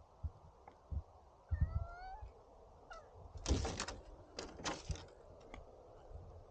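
A black-and-white cat gives a short rising meow, then scrabbles up a wooden board fence, its claws scraping and knocking on the boards in two noisy bursts, the first about three and a half seconds in and the second a second later.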